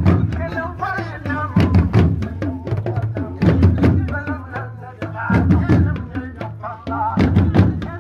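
Music with steady drumming and a voice singing over it.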